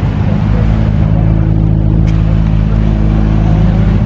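A car engine running steadily, with an even low drone.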